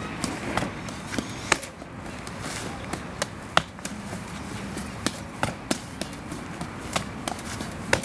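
Bare fists, forearms and shins striking a column of stacked car tyres: about a dozen irregular slaps and thuds, some coming two or three in quick succession.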